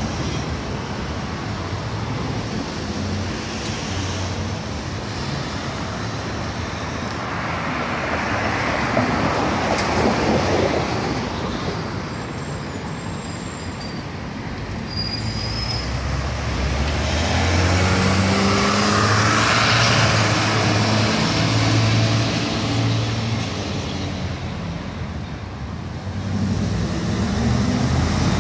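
Street traffic: vehicles passing on a city road, with two louder passes swelling up and dying away, one about a third of the way in and one about two-thirds in. A faint high squeal rises and fades during the second pass.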